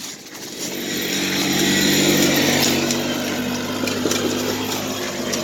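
Small engine running steadily, swelling in level over the first two seconds and then holding, with a hiss of motion over it.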